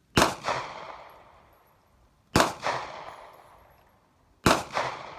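Three single gunshots, about two seconds apart, each with a quick echo and a fading reverberant tail.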